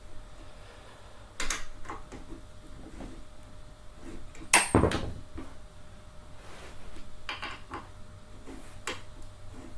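Parts of a gaming chair and an assembly tool being handled: scattered clicks and light knocks, with one loud clunk about four and a half seconds in.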